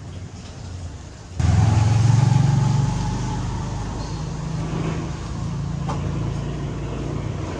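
A motor vehicle engine running with a low rumble, starting suddenly about a second and a half in, loudest for the first second or so, then settling to a steady, slightly quieter level.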